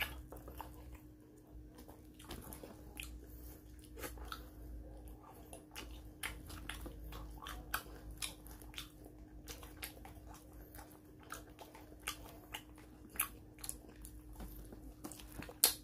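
Close-up eating sounds: fried fish and crab being picked apart by hand and chewed, giving many irregular small clicks and crackles.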